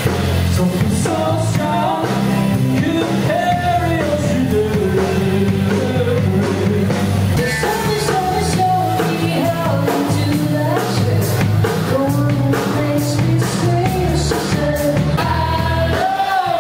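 Live rock band playing: a woman singing lead over acoustic guitar, electric guitar, bass guitar and drums.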